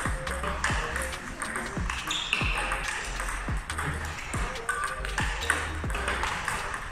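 Table tennis balls fired by a ball robot, struck with a paddle and bouncing on the table in quick succession, over background music with a steady bass beat.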